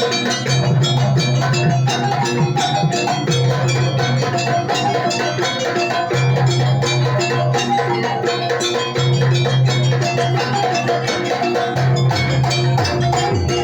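Gandrung gamelan music: dense, quick metallic percussion strokes over a low held tone that sounds in stretches of a few seconds.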